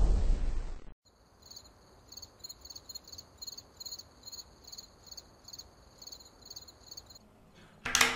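The tail of a loud boom cuts off suddenly about a second in, then crickets chirp faintly and steadily, about two chirps a second. Near the end, one short loud burst of noise.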